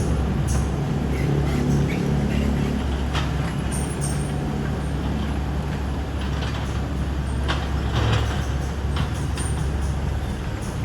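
Excavator's diesel engine running steadily under work, with a few short clanks about three seconds in and again near eight seconds.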